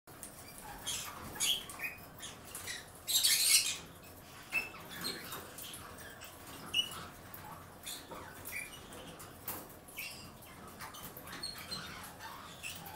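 Green-cheeked conures in a wire cage making scattered scratches, clicks and brief high squeaks, with a louder rustling scrape about three seconds in.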